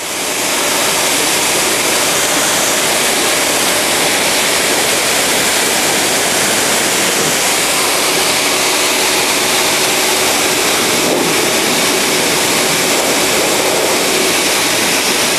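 Pet grooming blower running steadily: a loud, even rush of forced air, used to blow out and separate an English Angora rabbit's wool.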